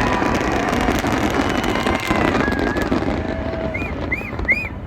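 Dense crackling of fireworks over the steady noise of a large crowd, with faint shouts; the crackle thins out after about three seconds, and three short rising-and-falling whistles come near the end.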